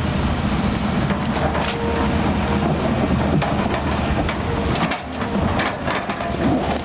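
Volvo EC210B excavator's diesel engine running steadily under digging load as the bucket works wet mud, with a few brief knocks from the bucket and boom.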